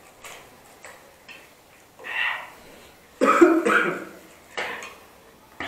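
A person coughing a few times, the loudest about three seconds in, while eating very spicy ramen. The coughing comes from the chilli heat.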